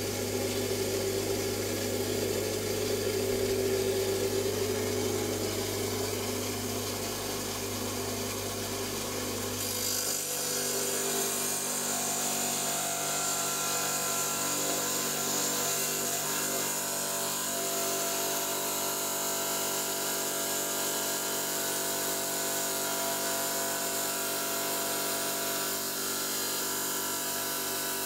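Electric stone saw running steadily while cutting through an agate nodule. About ten seconds in the sound changes and the low hum drops away.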